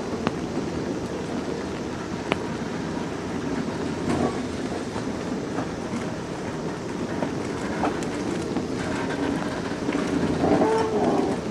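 Toei 10-000 series electric train cars rolling slowly past, a steady rumble of wheels on rail broken by occasional sharp knocks as the wheels cross the track. A short pitched tone sounds near the end.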